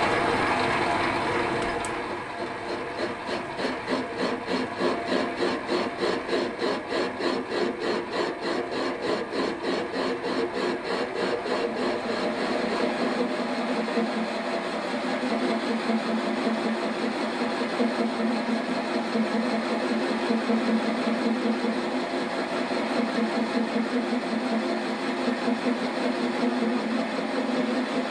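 Lathe boring a cast-iron cylinder with a between-centres boring bar on slow power feed: a steady cutting sound with a regular pulse, strongest in the first half. The machinist reads this sound of the cutter as a sign that it is cutting slightly more off one side of the bore than the other.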